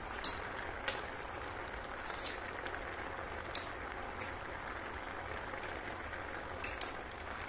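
Salted water with potato pieces at a rolling boil in a pan, bubbling steadily. A metal spoon clinks against the pan several times while it stirs and lifts out a piece to test doneness.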